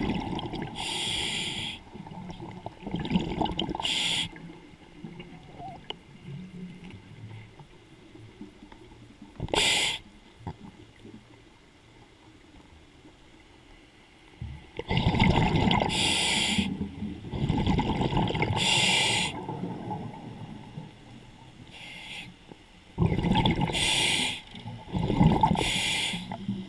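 Scuba diver breathing through a regulator underwater: a short hiss on each inhalation and a rumble of exhaled bubbles, repeating every few seconds with a quieter pause in the middle.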